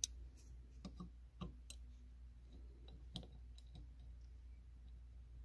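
Raw water pump cover plate and gasket being pressed into place on the pump housing by hand: scattered light clicks and taps, the sharpest right at the start, the rest spread over the next few seconds.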